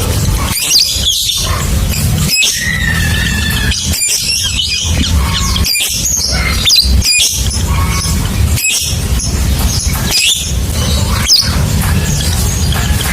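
Lovebird giving its long "ngekek" chatter: a fast run of shrill squeaky calls and quick up-and-down chirps. Under it sits a loud low drone with brief dropouts every second or two.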